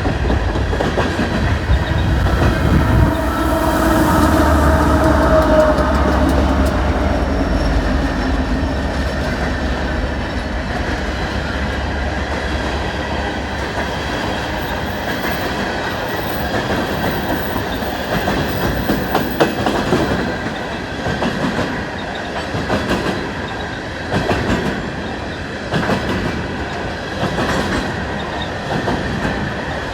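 BNSF freight train rolling past. A pair of mid-train distributed-power diesel locomotives go by in the first dozen seconds, a deep engine rumble with a steady hum over it. After that the freight cars clatter steadily over the rail joints with regular clicks.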